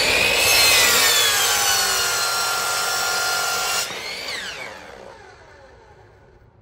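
Electric compound miter saw cutting through a wooden board: a loud motor whine that sags slightly in pitch under the cut. About four seconds in the trigger is released and the whine falls away in pitch as the blade spins down.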